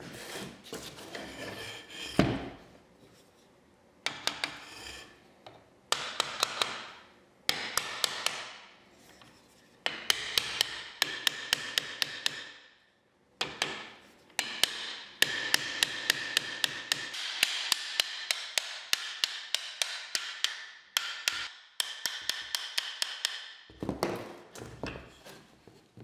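Bursts of rapid scrubbing with sharp clicks, several strokes a second, as an antique wooden plow plane is cleaned by hand. The bursts stop and start every few seconds.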